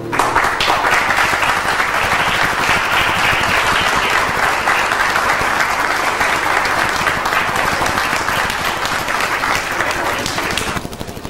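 Audience applauding: dense, steady clapping that starts abruptly and thins to a few scattered claps near the end.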